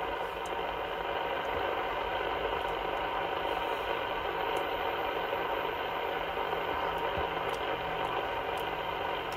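CB transceiver tuned to 27.285 MHz (channel 28), hissing with steady band noise and static from its speaker, with faint steady tones under the hiss: an open channel with no station readable.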